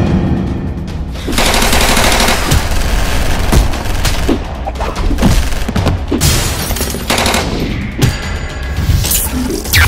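Action-film sound effects: rapid automatic gunfire and sharp hits, over action music.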